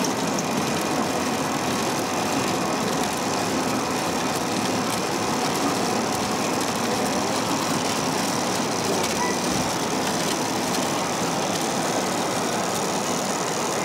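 Steady din of a busy exhibition hall, with the engine-like running sound of radio-controlled model construction vehicles at work.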